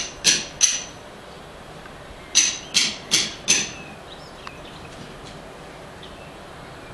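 Sharp knocks with a ringing tone, struck in quick groups: three at the start and four more about two and a half seconds in, roughly three a second, over a faint steady background hiss.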